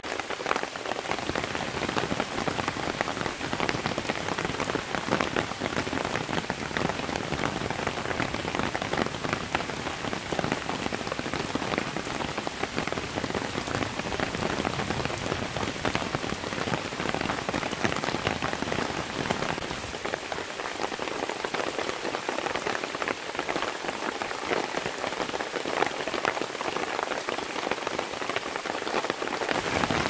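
Heavy rain falling steadily on tree leaves and grass: a dense, even hiss studded with the sharp ticks of single drops.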